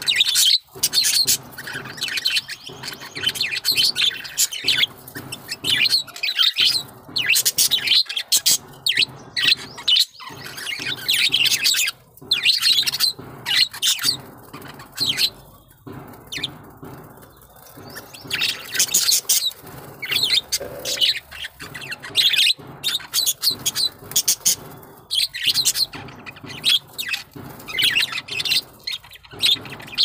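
A flock of caged budgerigars chattering and chirping continuously in fast, overlapping high-pitched calls, easing off for a few seconds around the middle.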